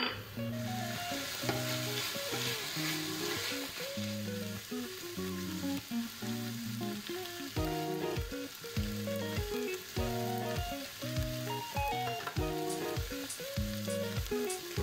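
Minced meat and onion frying in a pan, sizzling while a wooden spoon stirs and scrapes through it; the sizzle is strongest in the first few seconds. Background music with plucked melodic notes plays throughout, with a steady low beat from about halfway.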